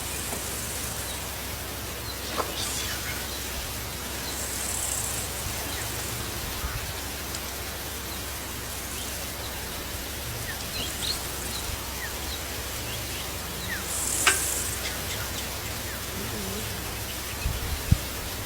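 Outdoor bush ambience: a steady hiss with a few faint short bird chirps, two brief high buzzes about 5 and 14 seconds in, and a couple of sharp clicks and low knocks.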